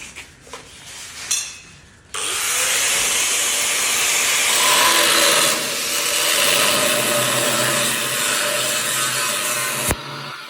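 A power tool cuts steel, making a loud, steady, harsh hissing noise. It starts suddenly about two seconds in after a few quieter clicks, and cuts off abruptly near the end.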